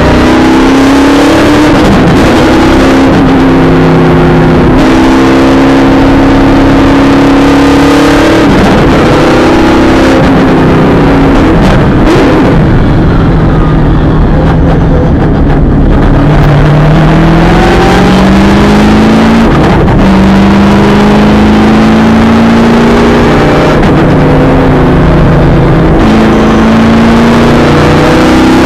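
V8 Supercar's V8 engine heard loud from inside the cockpit at racing speed, its pitch climbing and stepping down repeatedly as it goes through the gears. The revs fall away for a few seconds around the middle, then climb again.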